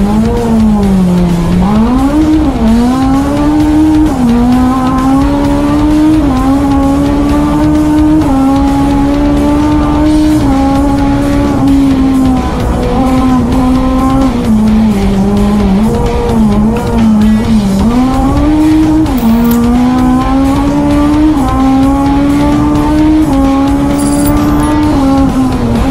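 Honda rally car's engine heard from inside the cabin, held at high revs. Its pitch climbs through each gear and drops sharply at the shifts, several times in quick succession near the start and again in the middle.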